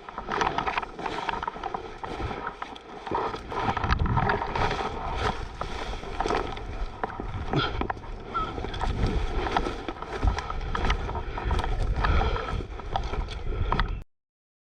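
Rustling, scuffing and small knocks of a player moving with his gear close to a head-mounted camera's microphone, with a low wind rumble on the microphone from about four seconds in. The sound cuts off abruptly just before the end.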